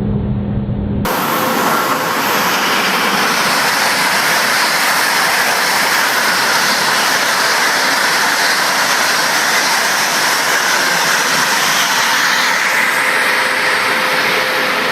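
Steady, loud rushing hiss of a high-speed train running at speed, starting abruptly about a second in.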